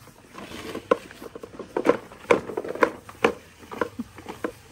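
Plastic toys knocking and clattering: a toy dump truck loaded with toy monster trucks being pushed along, giving a string of irregular sharp knocks.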